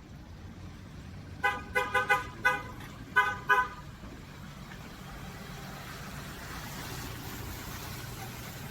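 A vehicle horn tooting in a quick series of short beeps, about five and then two more, followed by a vehicle's engine running and growing louder as it draws near.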